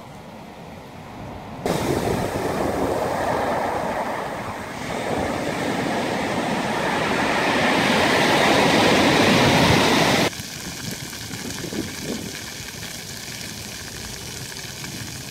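Sea surf breaking on a pebble beach: a loud, steady wash of waves that swells toward a peak, then cuts off suddenly about two-thirds of the way through, leaving a quieter steady background.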